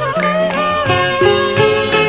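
Instrumental interlude of a Bengali modern song with no singing: held melody notes give way, about a second in, to a run of plucked string notes over a bass line.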